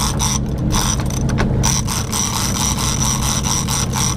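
Big-game fishing reel ratcheting with a rapid run of clicks and a high steady whine as line moves on a hooked fish, over the steady low drone of the boat's engines.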